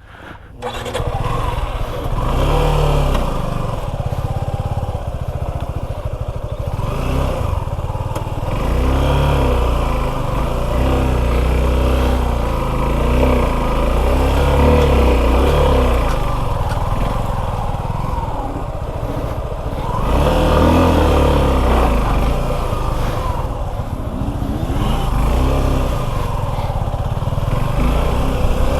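Suzuki V-Strom 250 SX's single-cylinder engine being ridden off-road, its revs rising and falling again and again with the throttle.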